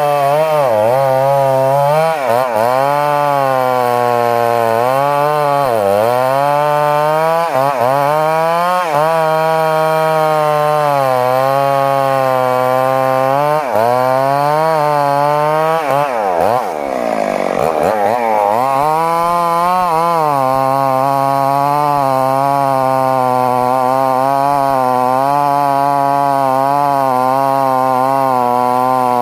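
Two-stroke Stihl chainsaw running at high revs while cutting wood, its pitch dipping and recovering again and again as the chain bites into the cut. About halfway through the revs drop steeply, then climb back, and the saw runs at a steadier high pitch near the end.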